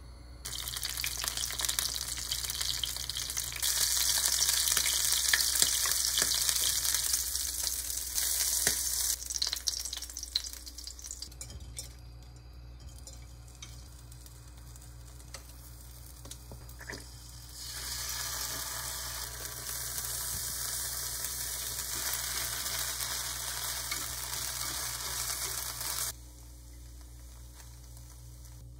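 Shrimp frying in hot olive oil in a small square pan: a steady sizzle that swells a few seconds in and dies down about eleven seconds in, with a few light taps. A second run of sizzling starts around eighteen seconds in as the shrimp cook on in sweet chili sauce, and cuts off suddenly near the end.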